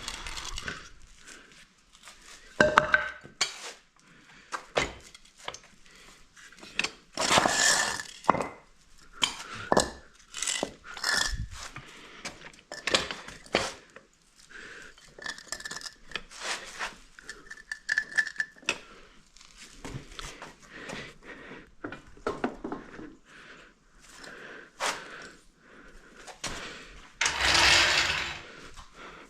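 Scattered metallic clinks, knocks and scrapes of hand tools and parts being handled during repair work on a quad, with a few louder clanks and a longer rattling scrape near the end.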